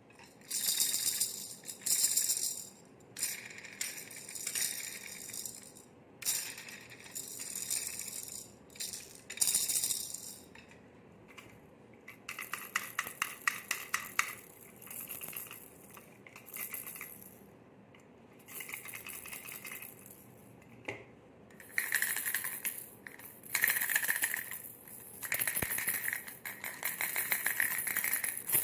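Baby rattle toys shaken in a series of short bursts. There is a fast run of clicks about twelve seconds in, and brighter, more tonal jingling in the last several seconds.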